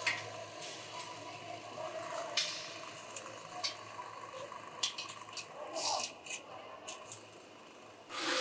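Workshop ambience: scattered metallic clicks and knocks from parts being handled, over a steady low hum.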